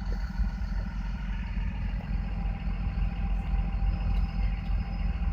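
Car engine idling while stopped at a railroad crossing, heard from inside the cabin as a steady low rumble.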